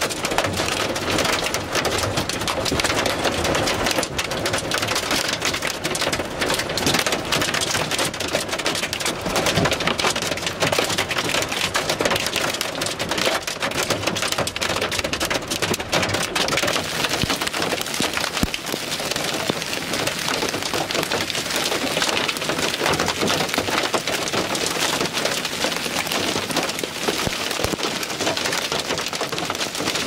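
Heavy wind-driven rain mixed with hail pelting the car's roof and windshield, heard from inside the cabin as a dense, continuous patter of impacts that does not let up.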